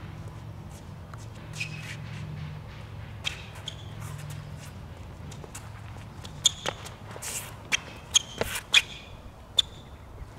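Tennis shoes squeaking and scuffing on a hard court during quick footwork: split steps and shuffling recovery steps. There are several short, sharp squeaks, most of them in a cluster over the last few seconds, above a steady low hum.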